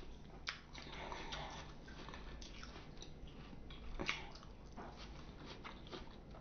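Quiet chewing and biting of fresh fruit, with a few sharp mouth clicks scattered through it.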